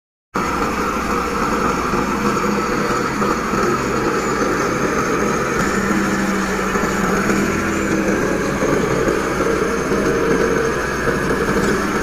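LiuGong crawler bulldozer's diesel engine running steadily under load as the dozer pushes wet sand with its blade.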